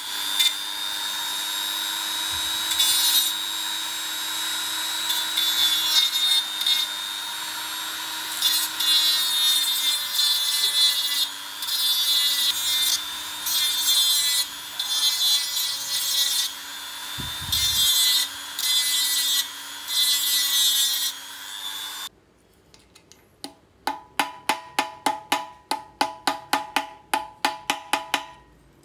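Small high-speed rotary grinder running with a steady whine while its stone grinds the metal of a hard-drive actuator arm, with a harsh scraping rasp each time it bites. The grinder stops about three-quarters of the way in. It is followed by a quick run of about twenty hammer blows on metal against a steel vise, ringing sharply.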